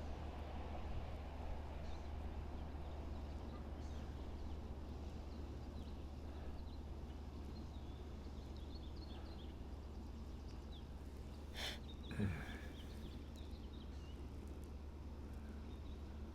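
Outdoor station ambience: a steady low rumble with faint bird chirps scattered through, and a brief louder sound about twelve seconds in.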